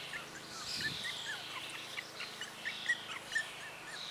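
Outdoor birdsong: many short chirps in quick succession, with a faint steady hum of insects behind.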